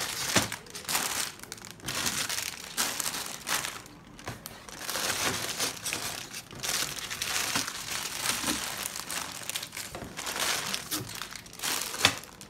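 Sealed plastic bags of Lego parts crinkling and rustling in irregular bursts as they are lifted out of a cardboard box and set down, with a sharp knock near the end.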